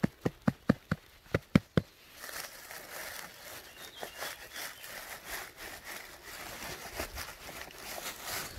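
A quick run of about nine soft knocks in the first two seconds, then dry fallen oak leaves rustling as a gloved hand brushes the leaf litter away from around a large porcini.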